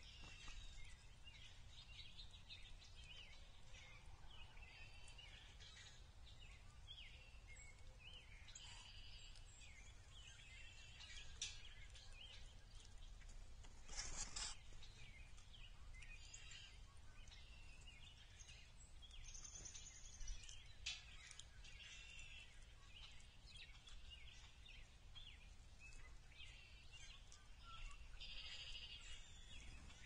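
Faint songbird calls and song, many short chirps and phrases scattered through, with more calling near the end, over a steady low outdoor rumble. One sharper, louder sound comes about halfway through.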